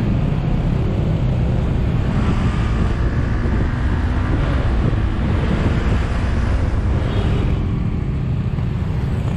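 Honda CB150X's single-cylinder engine running while riding, mixed with steady wind noise on the bike-mounted camera's microphone.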